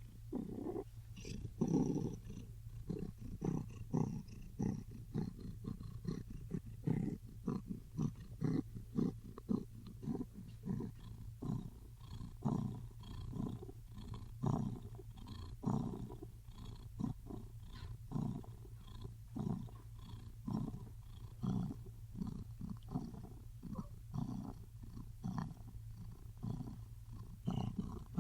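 Big cat making a low, rhythmic rumbling purr-growl, a long series of pulses about one to two a second.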